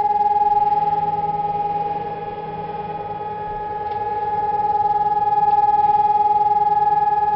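Civil-defence siren sounding one long steady tone at a fixed pitch for the siren test, fading somewhat about two seconds in and swelling back up.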